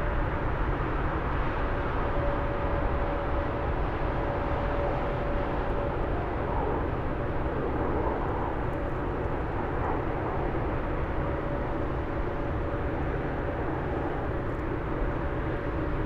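Airbus A350-900's twin Rolls-Royce Trent XWB turbofans at takeoff power as the jet lifts off and climbs away: a steady jet roar with a droning tone running through it, easing slightly toward the end.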